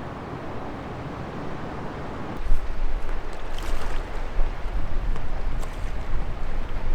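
Wind buffeting the microphone over the rush of water around a sailboat, growing louder with heavy low rumble about two and a half seconds in.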